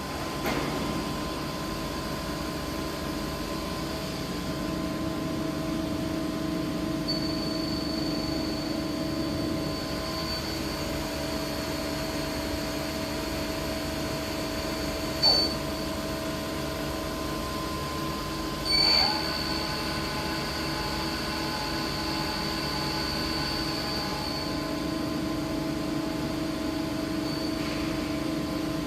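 Yamazaki Mazak INTEGREX 200SY multi-tasking CNC lathe running, a steady machine hum with a high whine that comes in and drops out twice. Two short loud knocks break in, about halfway through and again a few seconds later.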